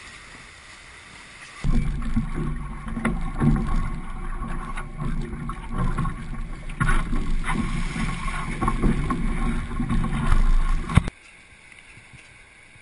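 Wind buffeting the microphone and water splashing and rushing along a Hobie 16 catamaran's hull as it sails. The noise comes in abruptly about two seconds in and cuts off suddenly near the end, leaving a faint background.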